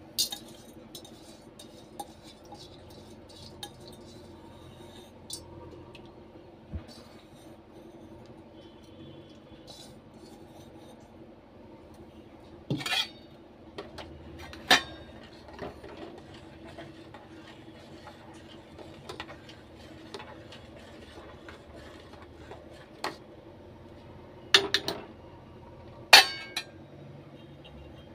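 A metal spoon clinking and scraping against the sides of a stainless steel pot as rice is stirred into heating milk. There are scattered sharp clinks, the loudest a few around the middle and two near the end, over a steady low hum.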